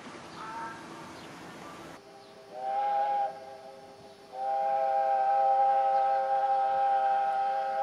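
Steam locomotive whistle blowing a chord of several notes, a short blast and then a long held one.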